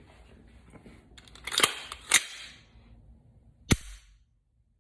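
AR-15 fitted with a Timney Calvin Elite drop-in trigger being dry-fired: sharp metallic clicks of the action. Two come about half a second apart a second and a half in, then a single sharper click about a second and a half later.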